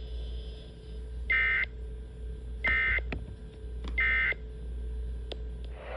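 Three short SAME end-of-message data bursts on NOAA Weather Radio, each a harsh two-tone digital screech about a third of a second long, a little over a second apart, over faint radio hiss. They are the EOM code that closes the weekly test of the alert tone system.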